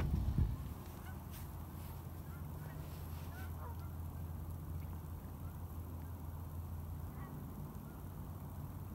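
Faint honking calls of geese, a few between one and four seconds in and another about seven seconds in, over a low steady rumble.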